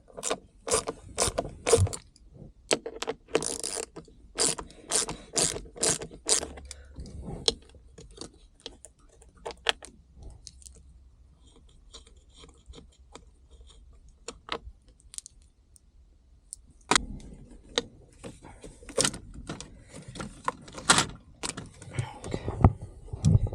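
Hand tools and metal parts clicking and clinking while bolts are being removed from a car's shifter assembly, in irregular bursts with a quieter lull in the middle.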